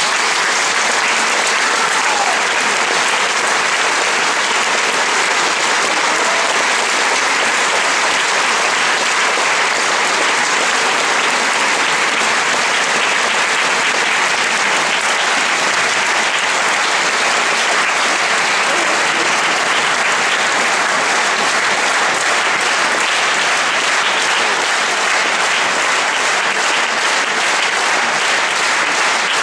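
Large audience applauding, a loud, dense, unbroken clapping that holds steady throughout.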